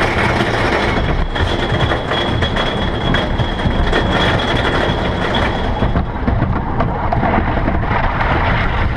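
Loud mechanical rattling and rumbling, like heavy machinery or a chain drive running, with a thin steady high whine that stops about six seconds in.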